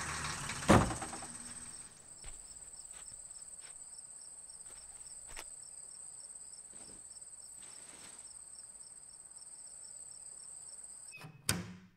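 Crickets chirping at night: a steady high trill with a faster pulsing chirp beneath it. A low rumble stops about two seconds in, a single loud thump comes about a second in, and another sharp knock comes near the end.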